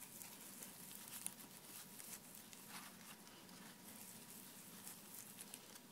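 Faint rubbing of a sheep's wool pad loaded with antique paste on carved leather, worked in circular motions, with a few soft scuffs.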